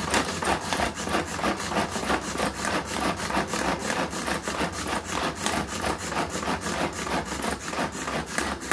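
Hand-pull cord food chopper being yanked over and over, its spinning blades mincing vegetables inside the plastic bowl: a fast, steady run of rasping, whirring strokes, about four a second.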